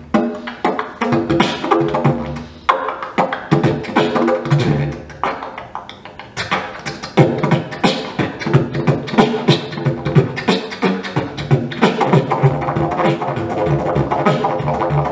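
Horizonde "Ré 24" didgeridoo played as a continuous rhythmic drone, pulsed by sharp vocal and tongue accents several times a second. The rhythm thins out briefly around the middle, then picks up and grows denser.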